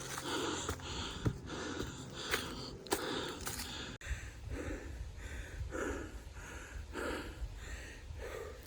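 A hiker breathing hard while climbing uphill, with quick, even puffs about every half second or so. A few sharp snaps of footsteps on the trail come near the start.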